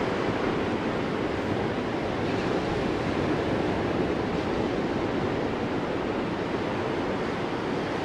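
Ocean surf: waves breaking and washing in, a steady rushing that hardly swells or fades.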